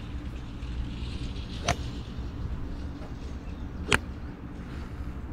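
Two sharp clicks about two seconds apart, the second louder, over a steady low rumble: a golf iron's head knocking against a ball at the hitting mat.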